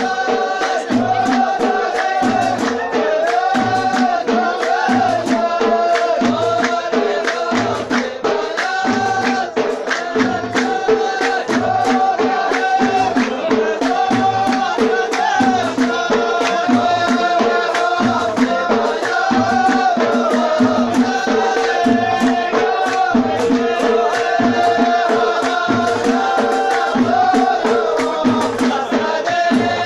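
Folk music: singing over drums that keep a steady beat about once a second.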